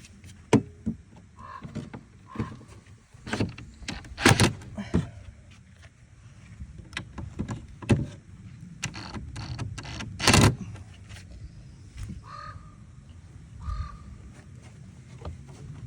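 Irregular knocks and clunks of wooden boards and tools being handled. There is a loud knock about four seconds in and a longer, louder clatter about ten seconds in, with a few short squeaks in between.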